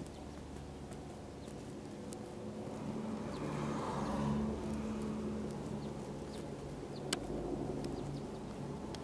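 Kawasaki BK117 C-1 twin-turbine helicopter flying at a distance, its rotor and engines giving a steady low drone that swells a little in the middle. A single sharp click about seven seconds in.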